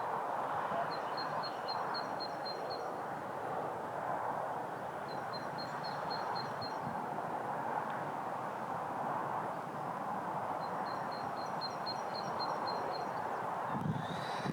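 A small bird sings three short runs of quick, high repeated notes over a steady rushing noise.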